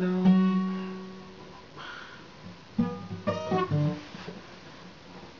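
Acoustic guitar: a strummed chord rings and fades, then a few notes are picked about three seconds in and die away as the song ends.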